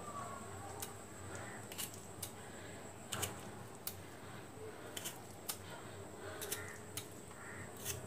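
Metal fork pricking whole, firm amla (Indian gooseberries), making sharp, irregular clicks roughly once a second.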